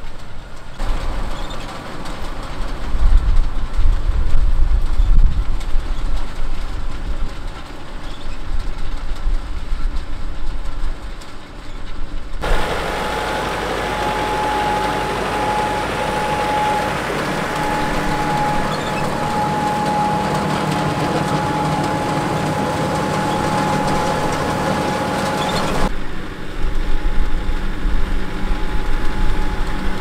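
AVR potato harvester drawn by a John Deere 6130R tractor working the field: engine running under the rumble and clatter of the harvester. About twelve seconds in the sound changes abruptly to a steadier run with a constant high whine, and near the end it goes back to the uneven rumble.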